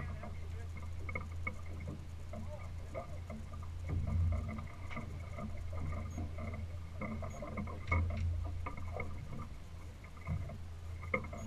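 Steady low rumble of wind and water around a small fishing boat at sea, with scattered small clicks and knocks from the anglers handling their rods and reels.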